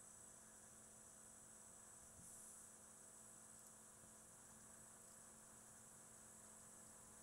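Near silence: a faint, steady electrical hum with a thin high whine, the background noise of the recording.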